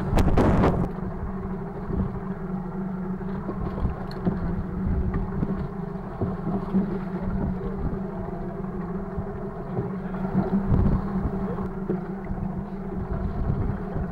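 An inflatable lifeboat's outboard engines idle steadily under wind and water noise, with a short, loud knock or clatter at the very start.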